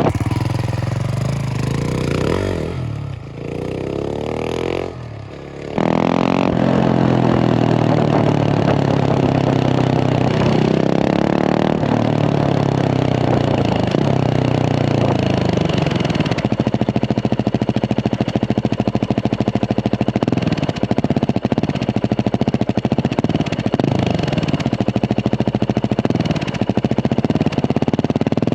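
Husqvarna 701 Supermoto's big single-cylinder engine running through a Remus exhaust, revving up and dropping off with a quieter dip a few seconds in, then steadier low-rev running with an even pulsing beat from about halfway.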